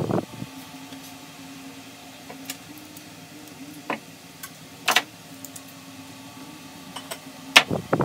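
Scattered sharp clicks and a few heavier knocks from handling the folding bike's front wheel and its mechanical disc brake parts, the loudest knocks at the very start and near the end, over a steady low hum.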